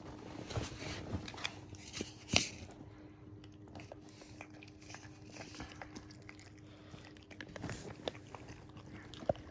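French bulldog puppy licking and chewing at a dose of oral medicine, with scattered wet mouth smacks and clicks and one louder click a couple of seconds in.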